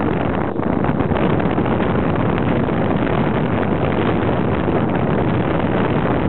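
Steady, loud rush of wind on the microphone mixed with the running noise of a vehicle driving along a dirt track.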